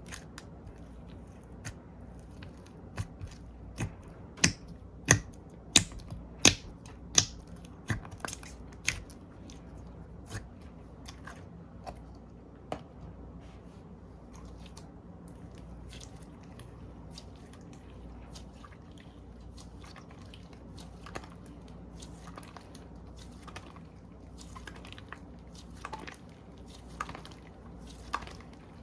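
Slime being poked and pressed by hand, giving wet sticky pops and clicks. A run of louder pops comes about every 0.7 s between roughly 4 and 8 seconds in, then softer, scattered ones.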